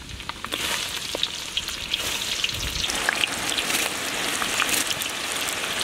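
Chopped garlic and onions frying in hot oil in a large wok: a steady sizzle with many small crackling pops.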